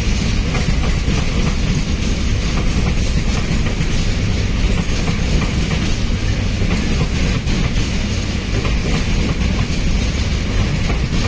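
Freight train of container-laden flat wagons rolling past: a steady, loud rumble of steel wheels on rail, with clicking as the wheels pass over rail joints.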